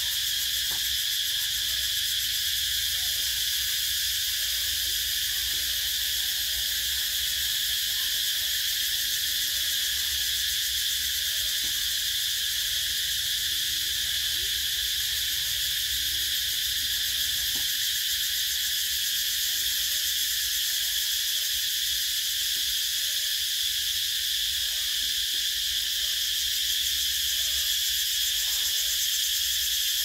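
Cicada calling: one steady, unbroken high-pitched buzz.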